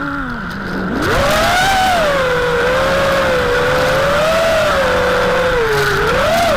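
FPV quadcopter's brushless motors whining, the pitch low after a throttle cut, climbing about a second in, then rising and falling with throttle changes, with a dip and a fresh climb near the end.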